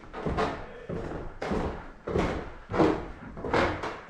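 Irregular sharp knocks and thuds, about five over four seconds, from airsoft play in an indoor close-quarters arena: shots and BB strikes on walls and doors.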